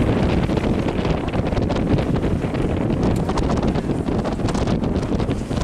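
Strong wind buffeting the microphone aboard a small motorboat on choppy water: a loud, steady rushing rumble.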